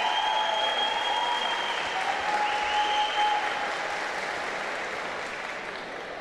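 Crowd applauding, dying away gradually.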